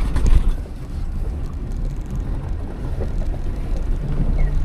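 Jeep driving slowly over an off-road trail, its engine and drivetrain giving a low, steady rumble.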